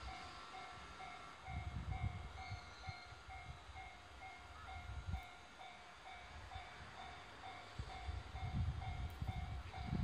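Japanese railway level-crossing warning bell ringing steadily, an even two-tone ding about twice a second, signalling an approaching train. A low, uneven rumble comes and goes underneath.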